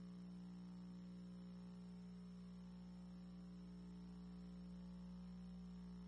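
Near silence: a faint, steady electrical hum with nothing else in it.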